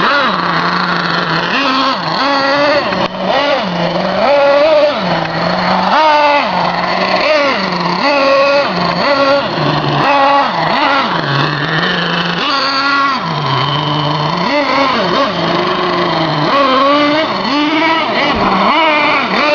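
Simson S50 moped's 50 cc two-stroke single-cylinder engine being ridden hard, its revs climbing and dropping back again and again, more than a dozen times.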